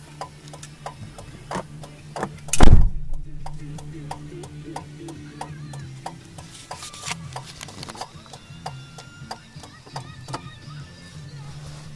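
Inside a Ford Ranger's cab: a low steady hum with quick regular ticks, about three a second, and one loud thump between two and three seconds in, with faint radio music underneath.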